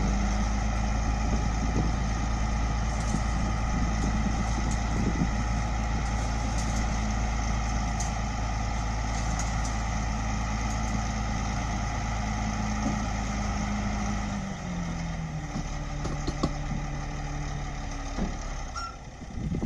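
Heavy vehicle engine running steadily with a low rumble; about fourteen seconds in, the rumble drops away and the engine note settles lower.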